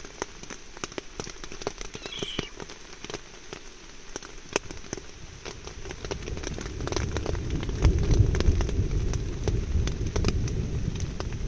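Raindrops tapping irregularly close to the microphone. A low rumble builds from about six seconds in and is loudest near eight seconds.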